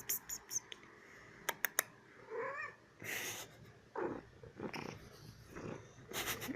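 Young domestic cat making small sounds while playing: a short chirping call about two and a half seconds in, among sharp clicks, bumps and rustling.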